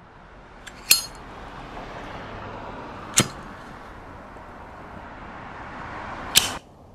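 A metal flip-top lighter gives three sharp metallic clicks, the first with a brief ringing clink, as it is opened and struck to light a cigarette. Under the clicks a hiss swells steadily and then cuts off suddenly near the end.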